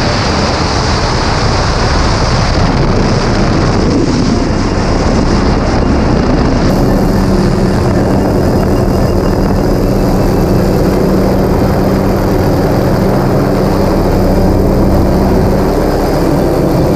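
Doors-off tour helicopter: turbine and rotor noise mixed with wind rushing past the open doorway in flight, then, after a sudden change about seven seconds in, the helicopter running on the ground with its main rotor still turning, a steadier hum with a high whine.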